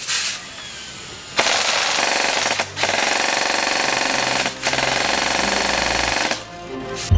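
Echo1 Stag Arms full-metal M4 airsoft electric gun firing full-auto in three long bursts, its gearbox cycling rapidly, with two short breaks between bursts.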